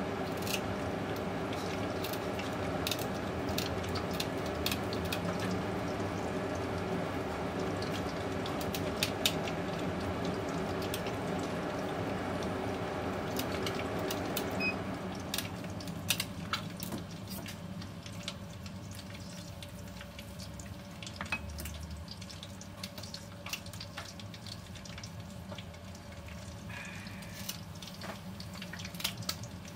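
Kitchen tap running steadily, dropping quieter about halfway, with many sharp clicks from kitchen shears snipping through a rabbitfish's fins and bones.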